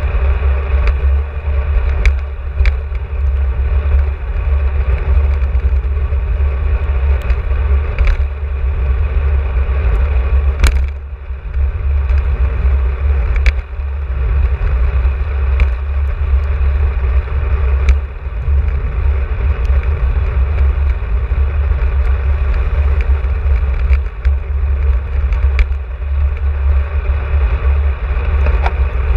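Wind buffeting the microphone of a camera on a moving bicycle, a steady low rumble with occasional sharp clicks.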